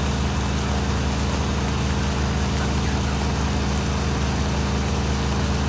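Fire truck's diesel engine idling steadily, a constant low hum with no change in speed.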